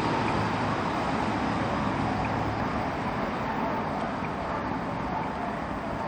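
Steady background rumble of road traffic and city noise, with no single event standing out.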